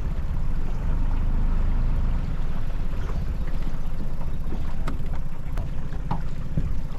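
Small outboard motor running steadily on an aluminium dinghy, a low rumble throughout. A few light knocks sound near the end.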